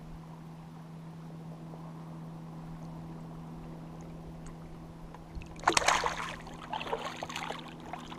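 A fish let go from the hand splashes into the lake about five and a half seconds in, with a second, smaller stretch of splashing a second later. A steady low hum runs underneath.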